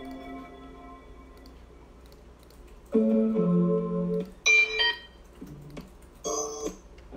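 Keyboard chord samples played back one after another on speakers: a chord rings out and fades, then about three seconds in comes a held chord, followed by several short chord stabs.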